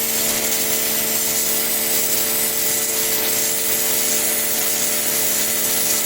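Ibell Wind55 electric pressure washer running steadily under load, its motor and pump giving a constant hum over the loud hiss of the high-pressure water jet blasting dirt off the ground.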